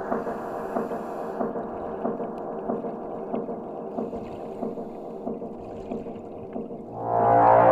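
Background electronic music with a steady beat of about two pulses a second over held tones, easing down, then a louder, fuller passage swelling in near the end.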